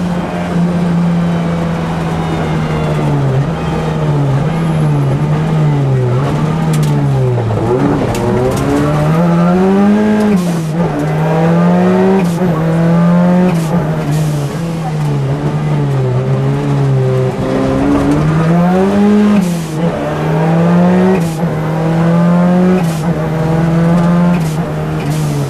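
Ford Sierra Cosworth's turbocharged four-cylinder engine at full rally-stage pace, heard from inside the cabin. Its revs climb and drop over and over with gear changes and lifts, and short sharp cracks come every so often.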